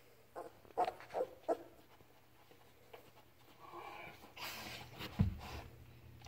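Newborn Labrador puppy giving four short squeaky whimpers in the first second and a half, then breathy snuffling as the mother dog noses it, with a single soft thump just after five seconds in.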